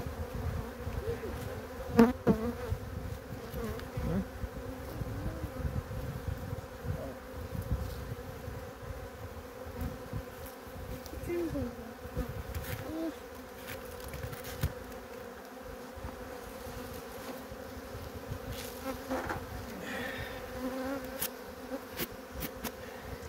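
Caucasian honeybees buzzing around an open hive: a steady hum, with single bees now and then flying close past. A sharp knock about two seconds in.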